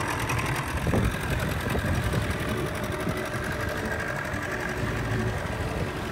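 Boat's outboard motor running steadily under way, a continuous engine drone with a fast, even beat.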